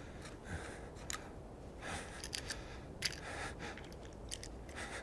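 Small clicks and short rustles of an object being handled in gloved hands, scattered irregularly over a faint steady outdoor background.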